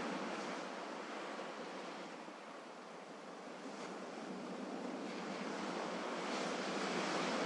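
Recorded sea waves washing on a shore: a steady rush that ebbs to its quietest about three seconds in and swells again toward the end.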